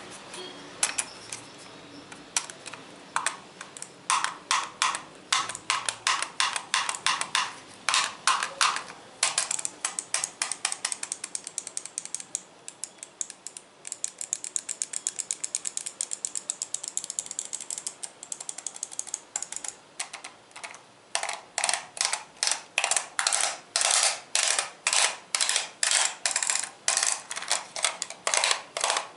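ASMR tapping on hard objects: a long run of short, crisp clicks and taps. They come a few a second at first, turn into a fast, dense clatter in the middle, then settle into louder, evenly spaced taps about two or three a second near the end.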